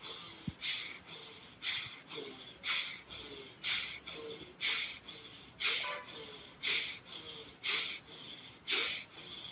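A person breathing forcefully and rhythmically through the nose as a pranayama exercise: a strong breath about once a second, each followed by a softer one.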